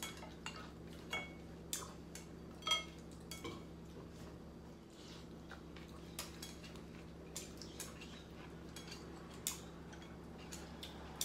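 Eating utensils clicking and clinking against ceramic soup bowls at irregular moments, a few of the knocks ringing briefly.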